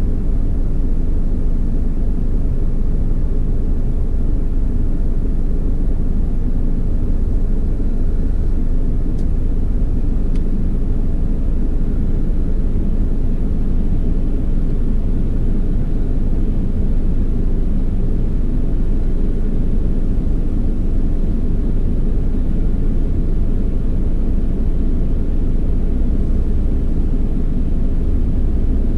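Steady low rumble of an idling vehicle engine, unchanging throughout.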